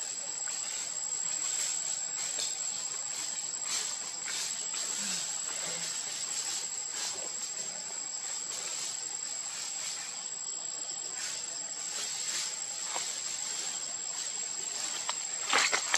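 Steady high-pitched insect drone, one unbroken tone, over faint forest ambience, with a brief burst of rustling noise near the end.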